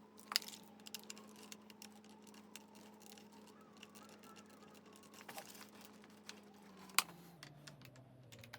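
Faint scattered clicks and ticks of a hex screwdriver working the battery screws out of a Dyson V10's plastic housing, with a sharper click about seven seconds in, over a faint steady hum.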